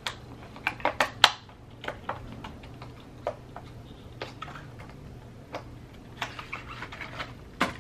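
Packaging of a nail dust brush being opened by hand: irregular clicks, snaps and rustles, the sharpest snap about a second in.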